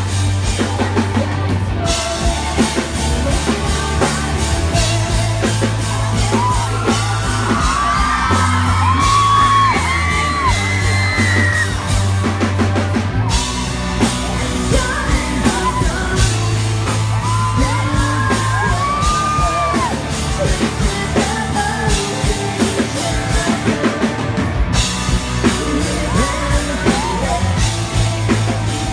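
Live rock band playing: drums, electric guitar and bass under a singing and yelling vocal line, loud and steady throughout.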